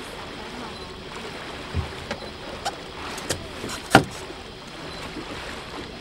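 Water slapping against a small boat's hull as it moves along a river, with several sharp knocks, the loudest about four seconds in.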